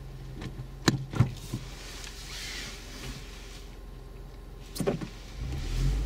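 Car cabin sounds: a few sharp clicks and knocks, a soft hiss in the middle, and a low steady hum that comes in near the end as the car is put into reverse.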